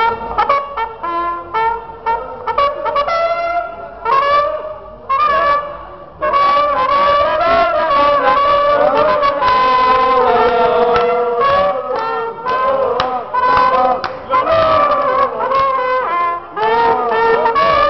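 A valved brass horn played in short separate notes and brief phrases, then, from about six seconds in, a continuous melody with held notes.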